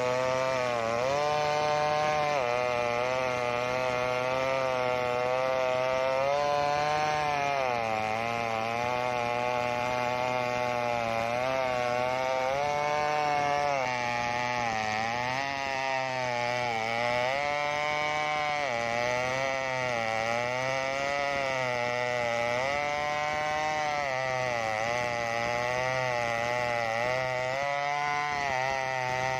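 Stihl chainsaw at high revs ripping a sengon log lengthwise. The engine pitch dips and recovers again and again as the chain loads and clears in the cut.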